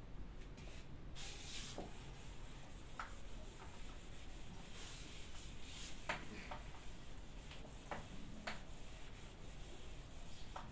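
Faint rubbing of a hand-held eraser wiping marker off a whiteboard, with a few light clicks scattered through it.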